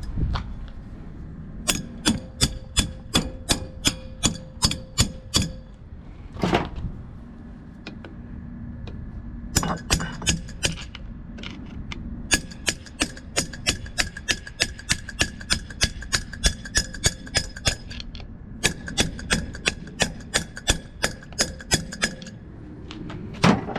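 Hammer blows on the steel crankshaft of a Copeland semi-hermetic compressor, in four runs of quick strikes about three a second, each strike ringing. The crankshaft is being driven loose from its bearings.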